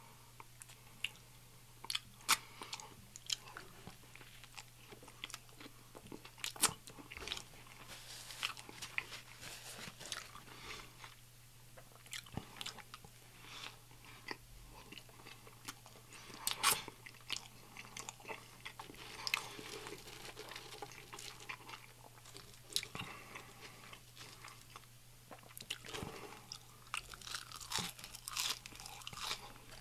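Close-miked eating: a person biting and chewing an egg salad sandwich on wheat bread and french fries, with irregular crisp crunches and clicks.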